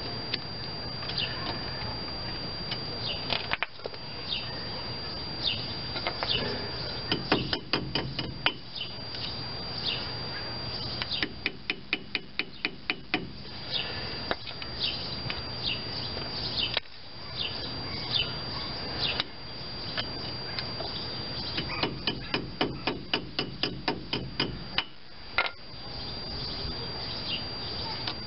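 Pliers and a hand tool clicking against the steel spindle nut and cotter pin at a Chevy S-10's front wheel hub: sharp metal clicks, several times in quick runs of a dozen or so. Birds chirp in the background.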